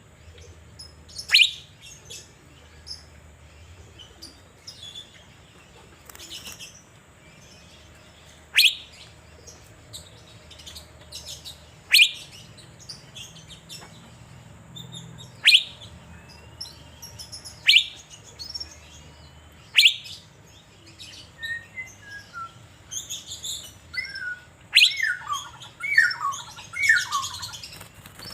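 Asian fairy-bluebird (cucak biru) calling: short, sharp whistled notes that fall steeply in pitch, repeated every two to four seconds, with a quicker run of lower falling notes near the end.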